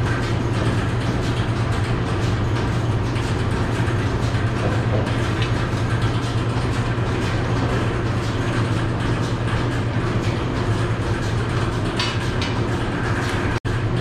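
Goat milking system's vacuum pump running with a steady low hum and hiss, with a momentary dropout near the end.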